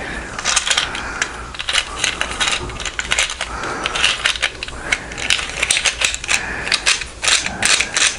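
Sig Sauer MPX .177 pellet belt and magazine being handled and slipped together: many small, irregular hard plastic-and-metal clicks and rattles.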